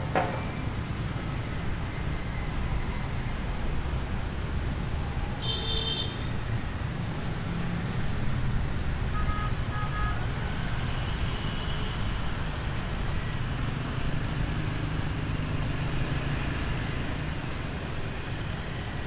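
City street traffic: a steady rumble of passing cars and motorbikes, with a short high-pitched horn toot about six seconds in and brief beeps a few seconds later.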